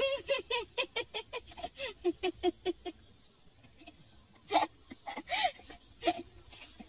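A person laughing in a quick run of short "ha" pulses, about six a second, falling in pitch and stopping about three seconds in. A few separate louder laughs follow near the end.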